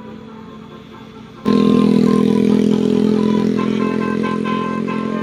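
Bus telolet horn sounding loudly from about a second and a half in, a chord of held horn notes whose upper notes change pitch like a short tune over a steady low tone. Before that, fainter traffic.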